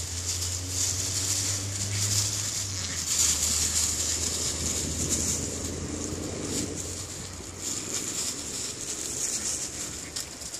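Dry fallen leaves rustling and crackling as puppies scramble and dig through them, over a steady low hum that weakens about two-thirds of the way in.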